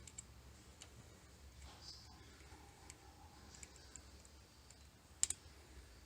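Faint, irregular small clicks over a low hum, with a sharper double click about five seconds in.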